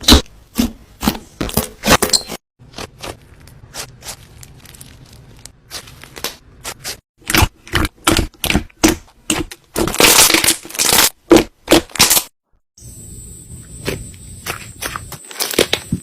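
Slime being squeezed and poked by hand, giving off rapid sharp crackling pops. The pops come thickest about ten seconds in. There are two short breaks, early on and near the end.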